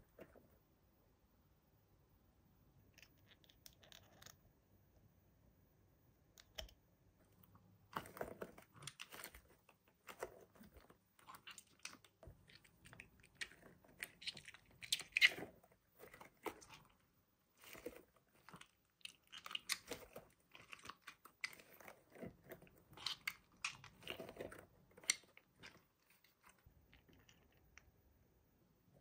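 Toy packaging being handled and opened by hand: irregular crackling, crinkling and clicking, starting about eight seconds in and dying away a few seconds before the end.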